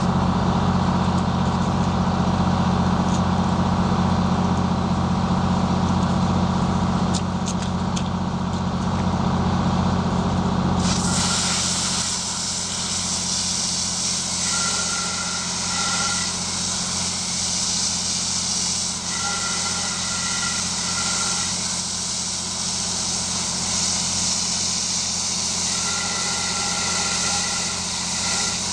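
A heavy vehicle engine runs steadily. About eleven seconds in, a loud steady hiss of spray suddenly starts and covers it. Three times after that, a short two-tone electronic beeping alternates between two pitches.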